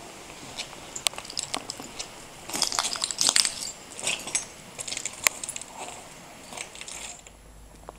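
Footsteps crunching on broken debris and shards, with scattered sharp clicks and a few denser bursts of crunching in the middle.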